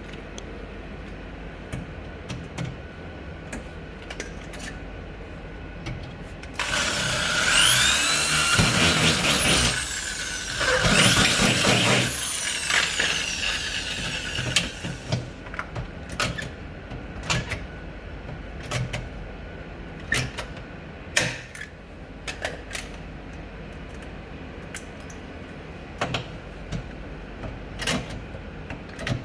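A hand-held power tool's motor runs twice in quick succession, its whine rising and then falling each time, followed by a string of sharp clicks and knocks as parts are handled.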